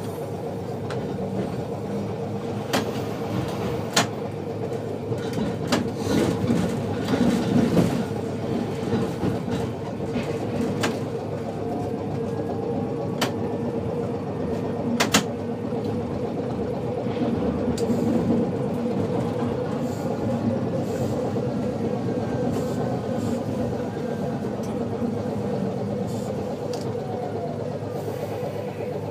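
Kumamoto City Tram 8800-series streetcar running, heard from inside the car: a steady hum and rumble, with a handful of sharp clacks as the wheels cross rail joints and track junctions, most of them in the first half.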